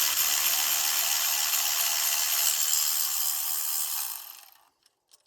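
Power ratchet running for about four and a half seconds, spinning out a 10 mm cam cap bolt on a 2.4 L Ecotec cylinder head, then fading out.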